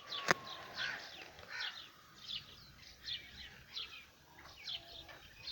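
Birds chirping: a steady string of short, high, downward-sliding chirps, a couple each second, with a sharp click just after the start.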